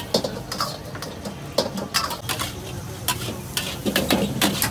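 A metal spatula clanging and scraping in a wok, with irregular sharp clanks over a steady sizzle of stir-frying.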